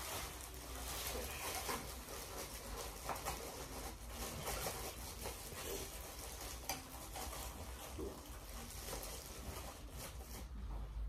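Clear plastic packaging crinkling and rustling as it is handled, with scattered small crackles and taps over a steady low hum.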